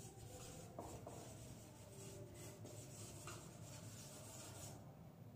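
Marker pen writing on a whiteboard: faint, short scratchy strokes as letters are drawn.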